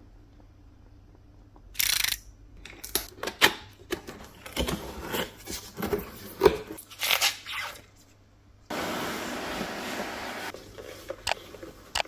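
Cardboard box and its packing being opened and unpacked by gloved hands: a short rip about two seconds in, then several seconds of cardboard flaps and a moulded pulp insert crinkling, knocking and clicking. After a brief pause comes a steady rustle of about two seconds as packing is pulled out, and a couple of sharp clicks near the end.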